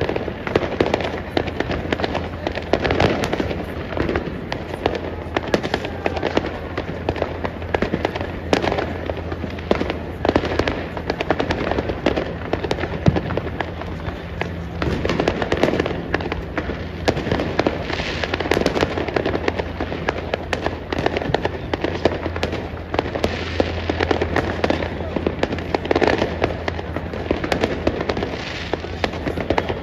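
Many New Year's Eve fireworks going off at once: a continuous, dense run of overlapping bangs and crackles, with no pause. A steady low hum runs underneath.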